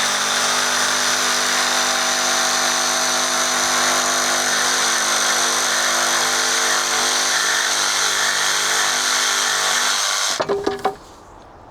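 Electric power saw running steadily as it cuts a length of timber, stopping about ten seconds in, followed by a few wooden knocks as the piece is handled.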